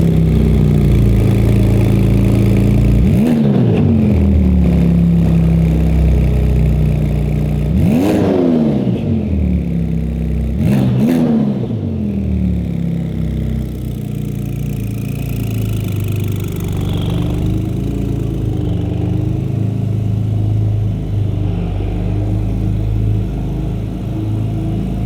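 Porsche 911 Turbo S (991.2) twin-turbo flat-six breathing through a Fabspeed Valvetronic exhaust, just started and settling down from a high idle. It is blipped three times, about three, eight and eleven seconds in, each rev rising and dropping back quickly, then it idles steadily.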